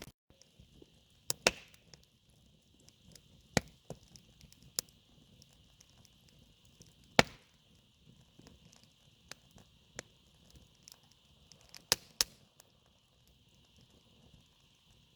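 Sharp knocks or strikes, about seven at irregular intervals, the loudest about halfway through and two in quick succession near the end, over a steady high-pitched drone.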